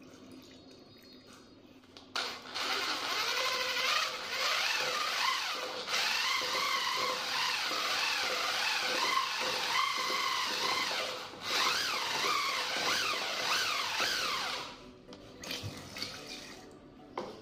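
Electric drill with a paddle mixer running in a bucket of paint, its motor whine wavering in pitch as it churns the thick paint and dipping briefly a few times; it stops near the end, and water is then poured into the bucket.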